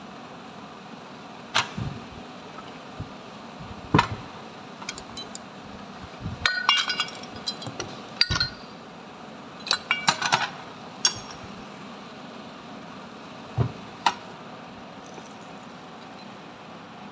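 Metal parts of a dismantled starter motor knocking and clinking against each other and the steel bench as they are handled: single sharp knocks and two bursts of ringing clinks, over a steady background hum.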